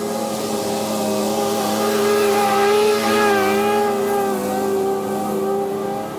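Skag zero-turn mower's engine and spinning blades running as it cuts tall grass, growing louder as it passes close about three seconds in, then fading as it moves away.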